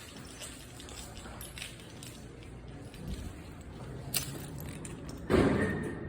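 Hydraulic elevator car in service: a low steady hum with small rattles, a sharp click about four seconds in, then a sudden loud thud that dies away over about half a second near the end.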